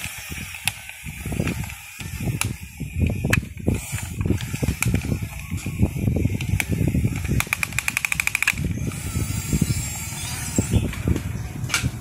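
Toy RC bulldozer's small electric motors whining while its plastic tracks clatter over dry sticks and dirt, with scattered sharp clicks and snaps. About eight seconds in, a fast rattle of clicks lasts for about a second.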